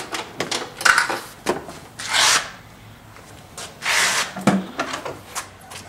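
Scooter seat being unlatched and lifted to open the under-seat storage bin: a string of plastic clicks and knocks, with two brief rustles about two and four seconds in.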